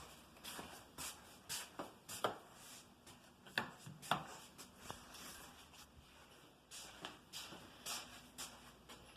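Faint, irregular rubbing and light taps, handling noise with no steady source.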